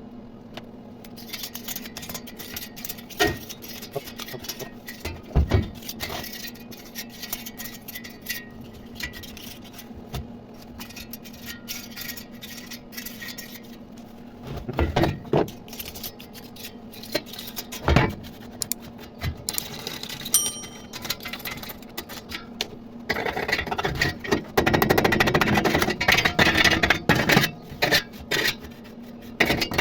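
Metalworking in a workshop: a steady electrical hum under sparse crackling, several sharp metal knocks, and a few seconds of loud, dense crackling noise near the end.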